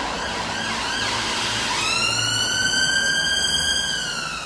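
Emergency-vehicle siren: a fast warbling yelp at first, then about two seconds in a long wail that climbs, holds high, and starts falling near the end.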